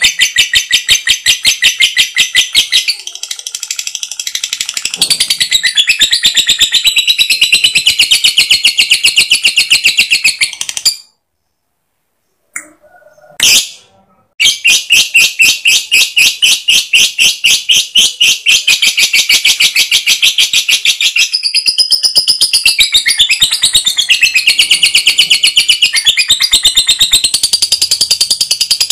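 Lovebird chattering in a long, fast trill of shrill repeated notes (the 'ngekek' song). The trill softens briefly a few seconds in, stops for about three seconds near the middle, and then resumes.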